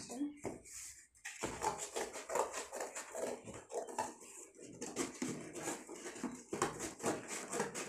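Scissors cutting through corrugated cardboard: an irregular run of snips and crunches, several a second.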